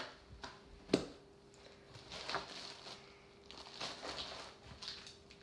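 Soft rustling and light taps of hands and clothing as two people sign, with one sharp tap about a second in, over a faint steady hum.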